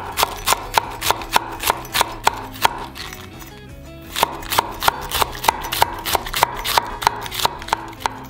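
A kitchen knife shredding cabbage on a wooden cutting board: crisp, even strokes about three to four a second, pausing for about a second near the middle. Background music plays underneath.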